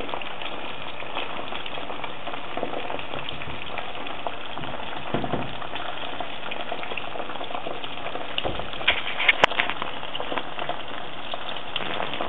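Eggs and eggplant slices sizzling steadily in hot oil in a frying pan, a dense crackle, with a few sharper clicks about three-quarters of the way through.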